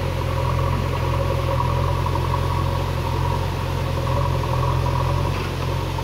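JCB backhoe loader's diesel engine running steadily under load while its backhoe works, with a steady higher whine over the low engine sound.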